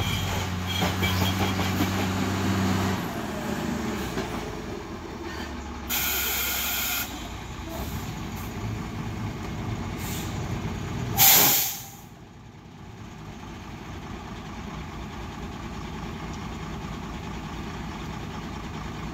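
Heavily loaded Ashok Leyland truck's diesel engine labouring on a steep climb; its steady note drops away about three seconds in as the truck fails to pull. Air brakes hiss twice: about a second long midway through the first half, then a short, much louder blast just past the middle. After that there is a low steady engine idle.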